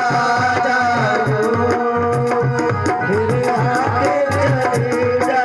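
Music of a Hindi devotional song to the Mother Goddess: a hand-drum rhythm keeps a steady beat under a held, sliding melody line.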